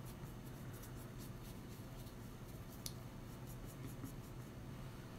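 Faint, light scratching strokes of a paintbrush spreading paint on a salt dough ornament, with one small sharp click about three seconds in.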